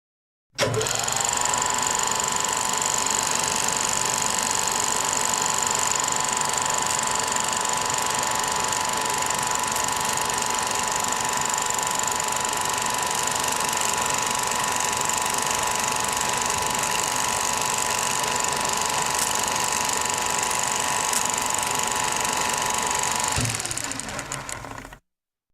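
Old film projector running: a steady mechanical clatter of the film transport over a motor hum. It starts suddenly, the hum settling in pitch as the motor comes up to speed, and fades out shortly before the end.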